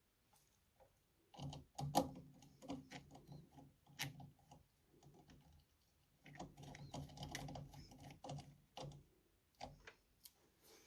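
Quiet, irregular clicks and taps of small wires and a terminal being handled while connecting a servo driver signal wire to a controller pin.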